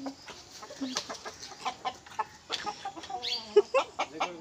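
Roosters clucking in short, sharp calls, coming thicker in the second half.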